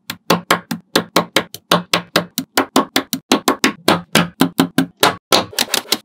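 Small neodymium magnetic balls snapping onto one another one at a time, a sharp click with a brief ring about five times a second in an even rhythm.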